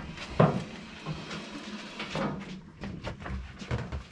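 Knocks and clatter of ratchet tie-down straps and their hooks being unhooked and set down on a steel motorcycle lift table, with one sharp knock about half a second in.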